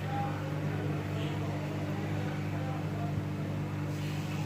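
Hot-air rework station blowing steadily, a constant fan hum and airflow hiss, as it heats the board to desolder a smartphone's charging port at low airflow.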